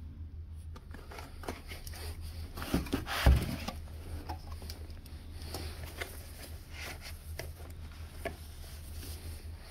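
A package being unwrapped and handled by hand: scattered rustles and small clicks, with a louder knock about three seconds in, over a steady low hum.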